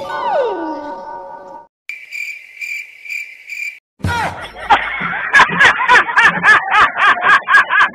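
Cricket chirping sound effect, a steady pulsing high chirp lasting about two seconds, after a falling tone at the start. From about four seconds in, a louder rhythmic pulsing sound at roughly three beats a second takes over.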